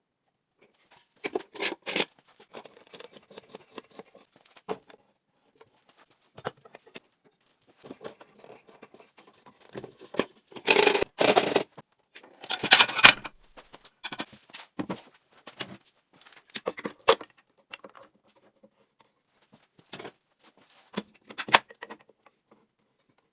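Intermittent workshop handling sounds: sharp knocks, clatters and scrapes of pieces being moved and set down on a workbench, in irregular bursts with quiet gaps, the busiest stretch about halfway through.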